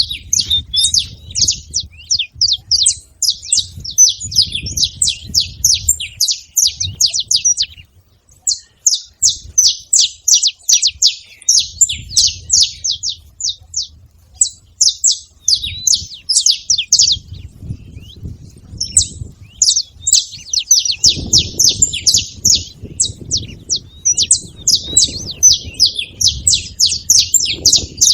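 Several saffron finches chirping together in a rapid, dense stream of high, sharp notes, with a short break about eight seconds in. A low rumble comes and goes underneath.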